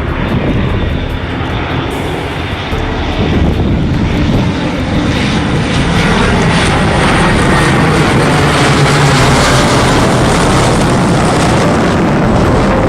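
C-130 Hercules four-engine turboprop running, the engine and propeller noise growing louder a few seconds in and then holding steady and loud.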